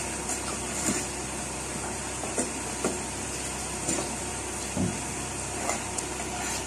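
Barnacles being scraped off a sailing yacht's fouled keel with a long-handled metal scraper. It makes short, sharp scrapes and knocks at irregular intervals, about one a second, over a steady hiss.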